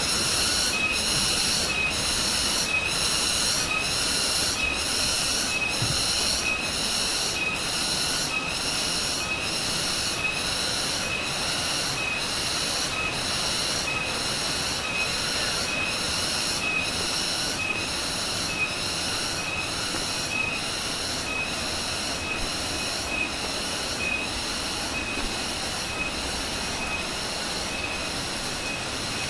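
Forest insect calling: a high buzzing call that pulses on and off at an even pace, roughly once every second and a quarter.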